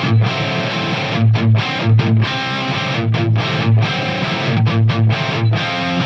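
Distorted electric guitar played through the Airis Effects Nemesis preamp pedal into a cab simulator. It plays a riff of low, repeated chords broken by short stops.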